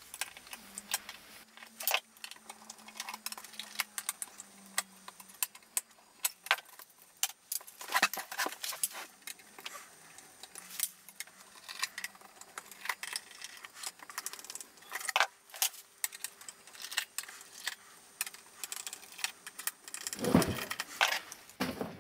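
Small screws being undone with a screwdriver on a metal avionics chassis: scattered light metallic clicks and rattles. Near the end there is a louder knock and handling noise from the heavy box.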